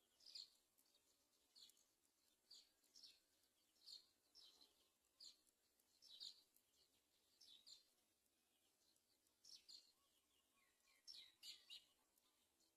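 Faint, short, high-pitched bird chirps, repeating about once or twice a second, with a brief cluster of lower notes near the end.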